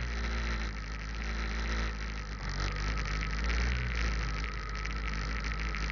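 Motorcycle engine running steadily, captured as low-quality sound by a budget action camera with no proper microphone.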